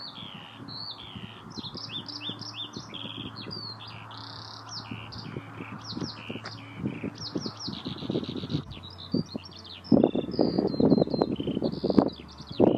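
Eurasian skylark singing in flight: a long, unbroken stream of fast, varied high chirps and trills. Wind buffets the microphone with low rumbling gusts that build up and are loudest over the last few seconds.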